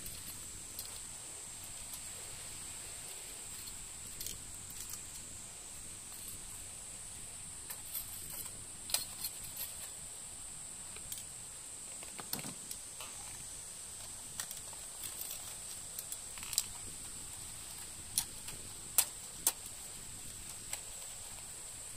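Insects droning in one steady, high, even tone, with scattered sharp clicks and taps, a few louder ones in the second half.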